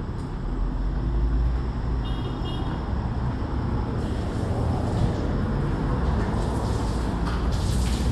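Steady highway traffic rumble from passing vehicles, with a brief high-pitched tone about two seconds in.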